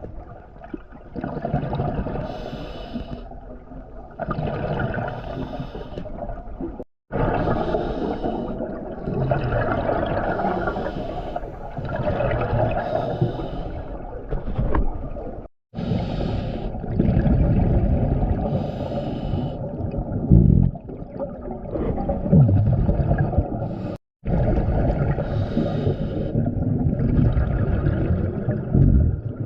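Scuba regulator breathing heard underwater: repeated hissing inhalations and rumbling, gurgling bursts of exhaust bubbles every couple of seconds. The sound cuts out abruptly three times for a split second.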